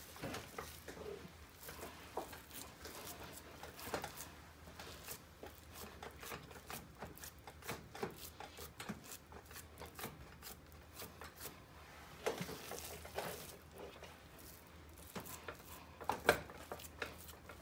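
Hands pressing and patting raw ground-meat meatloaf mixture into a glass loaf pan: faint soft squishes and many small clicks, a little louder about twelve seconds in and again near the end.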